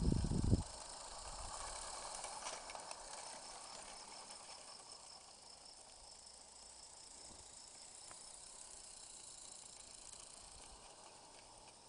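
Roundhouse live-steam garden-scale locomotive running with a steady hiss of steam, slowly fading. A brief low rumble sounds at the very start.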